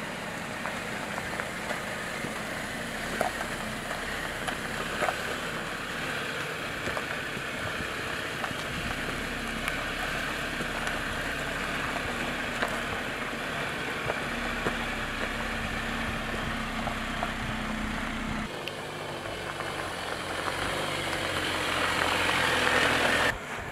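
Engine of a 2019 Jeep Wrangler Rubicon running at low revs as it drives slowly over rock, a steady low hum. The sound changes a little past the middle and grows louder near the end as the Jeep comes close.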